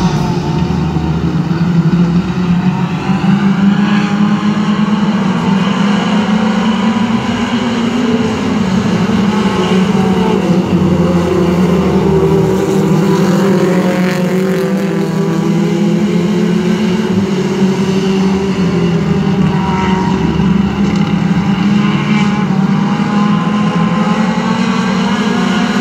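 A pack of mini stock race cars running at speed, their engines droning steadily together, with pitch rising and falling as cars pass.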